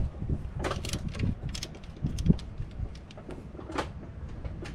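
Scattered metallic clicks and knocks of a wrench working on the alternator's pivot bolt, over a low steady rumble.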